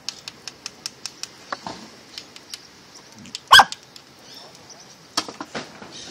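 A dog gives one short, sharp bark about three and a half seconds in, the loudest sound, while it noses at a crab in the sand. Around it, a string of short faint clicks and snuffles.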